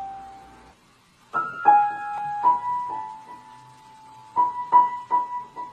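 Piano notes struck one at a time with pauses between them. The notes ring on and fade. Near the end the same note repeats a few times a second.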